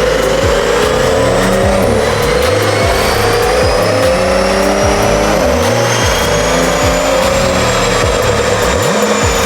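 Porsche 911 Carrera 4S flat-six, fitted with aftermarket downpipes and a stage 2 tune, accelerating hard under load. Its pitch climbs steadily, dips briefly about two seconds in as if on an upshift, and tops out near the end. Music with heavy bass plays underneath.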